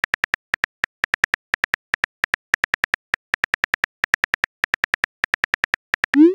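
Texting-app keyboard sound effect: quick, irregular clicks of simulated phone keys tapping, several a second, as a message is typed out. Just before the end comes a short rising tone, the app's message-sent sound.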